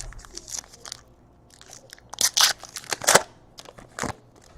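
Football trading cards being handled: irregular crisp crinkling and rustling, with the loudest run a couple of seconds in and another near the end.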